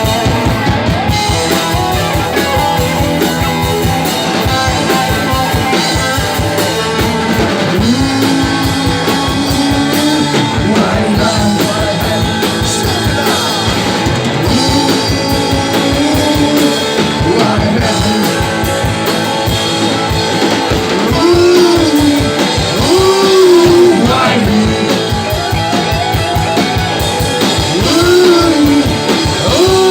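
Live rock band playing with a steady beat: electric guitar and drum kit, with a singing voice at times.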